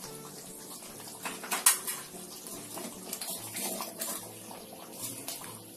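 Metal ladle stirring and scraping a thick, simmering gravy in a steel kadai, with a couple of sharp metal clinks about a second and a half in.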